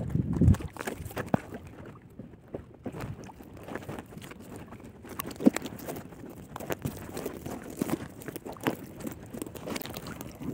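Fine nylon fishing net rustling and crinkling, with scattered small irregular clicks, as hands pick its mesh off a dead rohu fish. A low rumble of wind on the microphone sounds at the very start.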